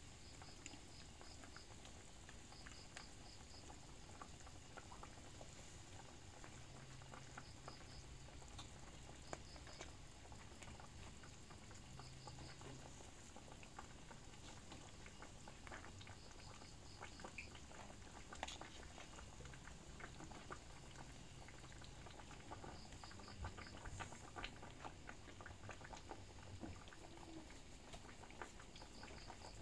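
Faint bubbling and scattered small crackles of a pot of food simmering. A high chirp of three to five quick notes recurs every few seconds.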